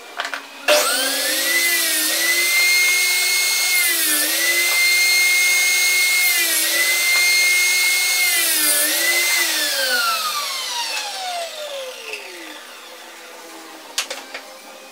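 Table saw switched on: its motor whines up to speed, and its pitch sags three times under load as the blade crosscuts wood pieces to length. Then it is switched off, and the whine falls steadily as the blade winds down. A few knocks of wood being handled come near the end.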